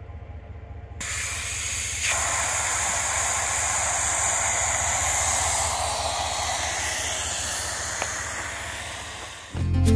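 Compressed air hissing steadily out of a pickup's off-road tyre through a Coyote tyre deflator, airing the tyre down to a lower pressure for sharp trail rocks. The hiss starts about a second in, gets louder a second later, then eases slightly before guitar music comes in near the end.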